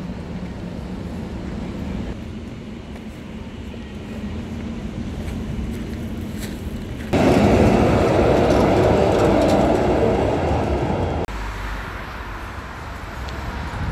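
Steady low rumble of vehicle traffic. About seven seconds in, a louder stretch of noise begins abruptly, and it cuts off just as abruptly about four seconds later.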